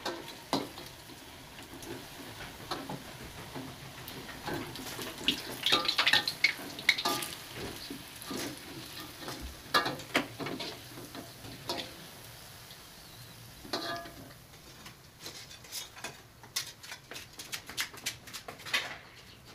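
Scattered clinks and clatter of dishes and utensils being handled, over a faint steady hiss.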